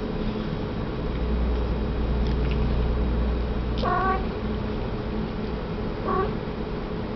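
Snow Bengal cat giving two short meows during rough play with a dog, the first about four seconds in and a shorter one about two seconds later. A low rumble runs underneath from about a second in until the first meow.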